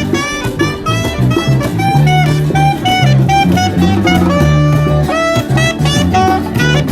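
Upbeat jazzy background music with a steady beat: drum kit, bass and a saxophone-like melody line.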